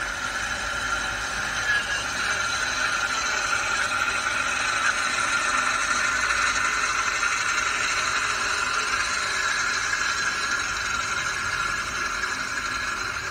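Wheeled walk-behind 7 hp brush cutter running steadily under load as it cuts through tall grass, its engine and blade giving a constant high whine over a rushing noise.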